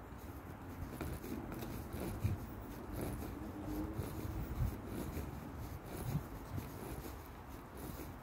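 Handling noise from a phone carried by a walking person: continuous rubbing and rustling on the microphone, with a few irregular low thumps.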